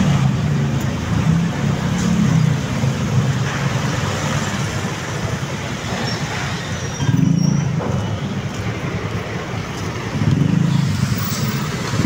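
Street traffic: cars, vans and motorcycles running close by in slow city traffic, with engine hum swelling louder about seven seconds in and again near the end.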